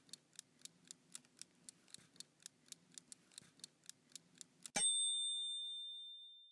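Clock ticking, about four ticks a second, then a single bell ding a little under five seconds in that rings out and fades.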